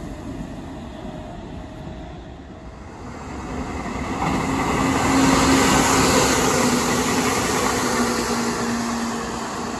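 Meitetsu 6000-series electric train, set 6030, passing as an express. The rush of wheels on the rails swells to its loudest about five seconds in, over a steady low hum that drops a little in pitch as the train goes by.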